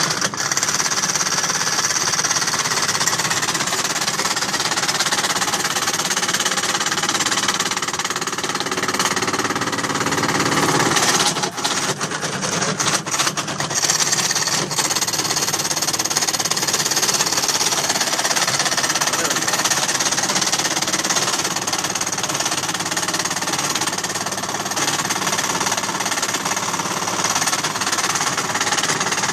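Motor-driven wire-stripping machine with two long rollers running steadily while insulated wire is fed through it. About eleven to fourteen seconds in, the sound turns uneven with a few sharp clicks and brief dips in level.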